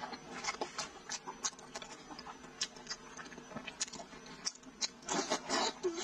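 Close-miked chewing and lip-smacking of sticky braised pork trotter skin: a string of short wet clicks and smacks, with a denser run of mouth sounds about five seconds in.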